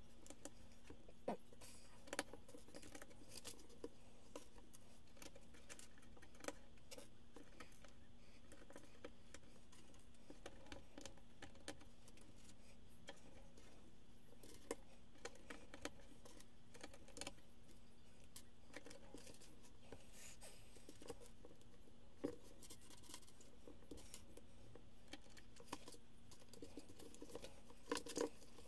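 Loose Lego bricks clicking and clattering faintly as hands sort through a pile of pieces on a wooden table, with a cluster of louder crinkles and clicks near the end as a plastic parts bag is handled. A faint steady hum sits underneath.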